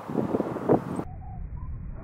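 Wind buffeting the microphone with uneven gusty rumble, dropping abruptly to a quieter low rumble about a second in.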